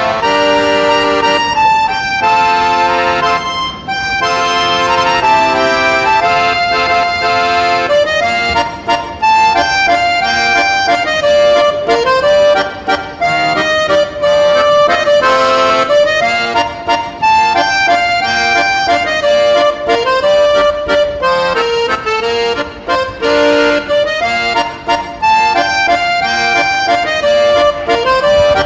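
Instrumental music: a melody of held notes stepping up and down over sustained chords, playing continuously.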